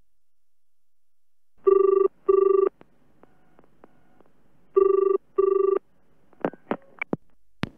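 Telephone ringing with a double ring: two double rings about three seconds apart. A few sharp clicks follow near the end as the call is picked up by an answering machine.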